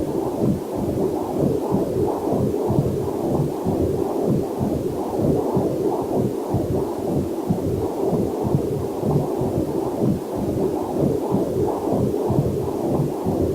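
Whooshing heartbeat picked up by a fetal Doppler heart monitor, with quick, even pulses, over a faint waterfall in the background.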